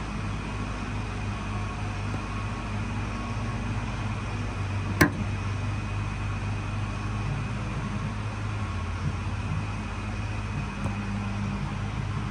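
Stratasys Objet260 Connex3 PolyJet 3D printer powered on and humming steadily, its print head parked, with one sharp click about five seconds in.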